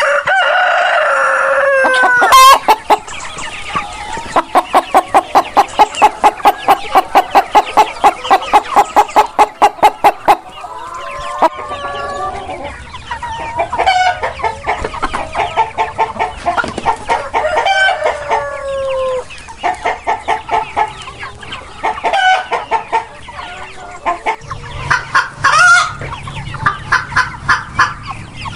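Chickens calling: a rooster's drawn-out crow that falls at its end, then a fast, even run of clucks about three a second, then scattered clucks and gliding calls.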